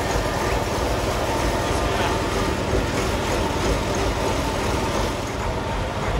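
An engine running steadily, with a low, even drone and no change in speed.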